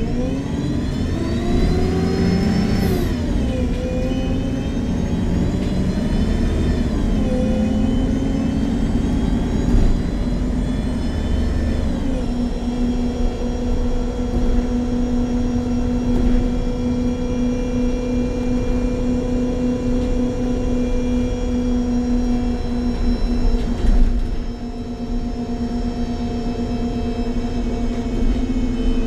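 MAN Lion's City G NG313 CNG articulated bus with a Voith automatic gearbox pulling away. The engine-and-transmission whine climbs in pitch and drops back at each of three upshifts over the first dozen seconds, then holds one steady pitch at cruising speed. It dips in level about five seconds before the end.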